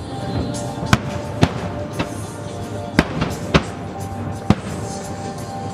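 Aerial fireworks shells bursting, about six sharp bangs at uneven intervals, with music playing underneath.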